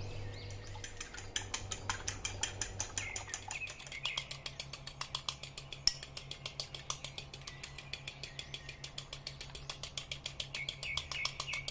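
Three eggs being beaten in a bowl, the utensil striking the bowl in rapid, regular clicks.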